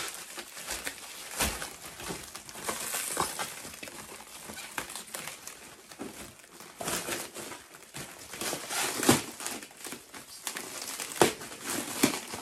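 Thick black plastic wrapping crinkling and rustling in irregular bursts as it is pulled and torn off a package by hand.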